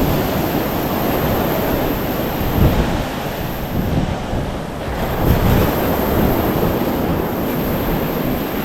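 Ocean surf washing onto the beach, with wind buffeting the microphone in a low, gusty rumble.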